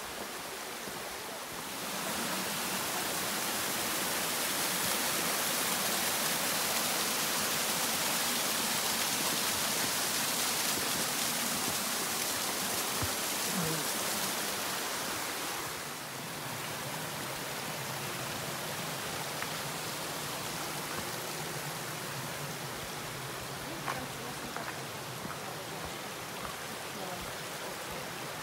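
Mountain stream rushing, a steady noise of flowing water that swells about two seconds in and drops back about sixteen seconds in.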